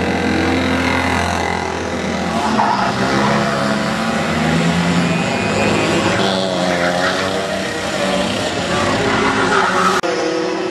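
Racing kart engines running on track, their pitch rising and falling as the karts accelerate and slow. The sound changes abruptly near the end.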